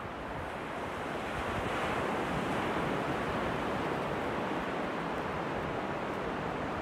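Sea surf breaking along a beach: a steady wash of waves that swells a little about two seconds in. Wind buffets the microphone with a low rumble underneath.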